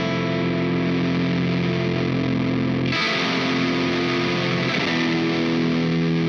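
Electric guitar, a Fender Elemental Jazzmaster, played through a Dazatronyx RAD distortion pedal (a take on the RAT circuit), ringing out sustained, heavily distorted chords that change about three seconds in and again around five seconds.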